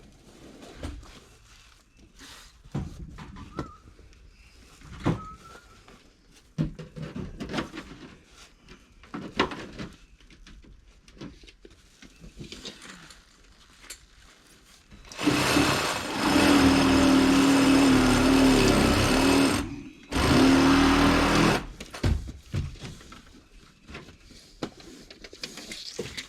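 Scattered knocks and clatter of hand work, then a handheld power tool running loud and steady in two runs: about four and a half seconds, a short break, then about a second and a half more.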